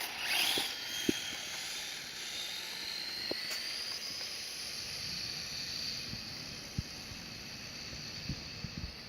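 Redcat Volcano RC truck's 3800kV Castle brushless motor on a 2S battery whining under full throttle on a speed run, its pitch rising over about three seconds as the truck gains speed, then holding steady, over a hiss.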